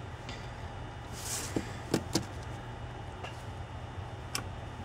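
Light clicks and taps of acrylic case parts being handled and set down on a tabletop, with a brief scrape; a cluster of small knocks about two seconds in and a single click near the end.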